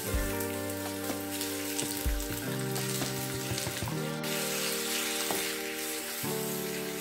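Sliced red onion and grated carrot sizzling in hot oil in a frying pan, with a few light clicks as a wooden spatula stirs them.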